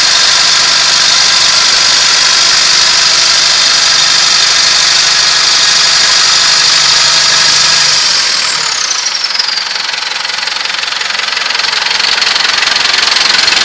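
New Holland TS110 tractor's six-cylinder diesel engine running steadily at raised speed, then about eight seconds in it is throttled back, with a high whine falling in pitch as the engine slows, and it runs on at the lower speed.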